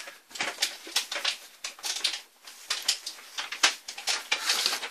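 Handling noise: irregular clicks, taps and short rustles, with a denser run of scraping clicks near the end.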